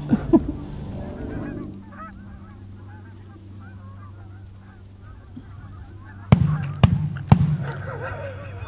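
A flock of Canada geese honking, then three shotgun shots in quick succession, about half a second apart, some six seconds in; the geese flush, honking louder as they take off.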